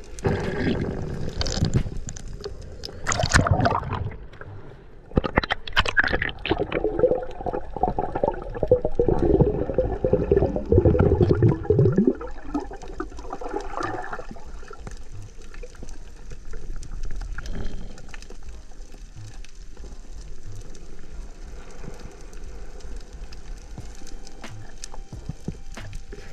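Water sloshing and gurgling around a diver's camera. Loud, uneven surges of splashing run through the first twelve seconds, then it settles to a quieter steady wash of water noise.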